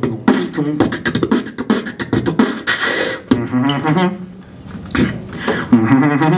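Beatboxing into a handheld microphone: rapid sharp mouth clicks and snare-like hits mixed with hummed low tones, easing off briefly about four seconds in before picking up again.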